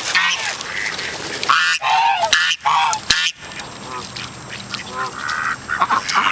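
Ducks quacking and geese honking from a mixed flock close by, many short calls overlapping and repeating.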